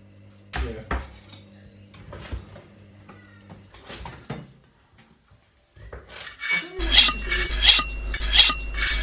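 A chef's knife drawn quickly through a handheld knife sharpener, starting about seven seconds in: a run of rasping metal-on-metal strokes, two to three a second, each ringing. Before that, a few scattered knocks and clatters of kitchen utensils.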